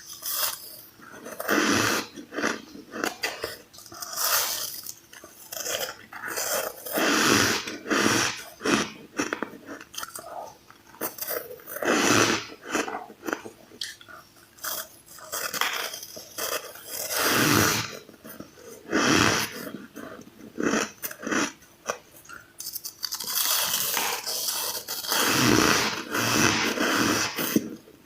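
Ice being bitten and crunched close to the microphone: irregular crisp crunches about once a second, with a denser run of crunching near the end.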